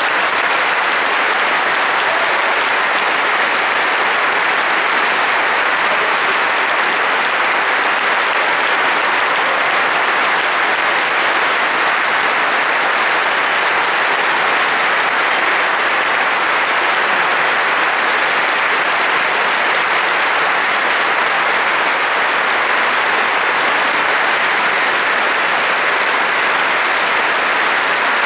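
Large concert-hall audience applauding, a dense, even clapping that holds at a steady level without dying down.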